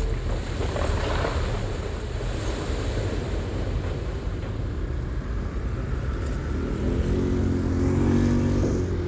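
Heavy earthmoving machine's diesel engine running steadily with a deep rumble, the engine note rising and growing louder for a couple of seconds near the end as it works under load.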